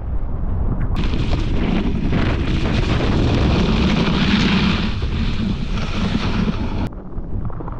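Wind buffeting the microphone while skiing down through powder, a steady low rumble. About a second in, a louder hiss joins it, likely skis rushing through snow, and it cuts off abruptly near the end.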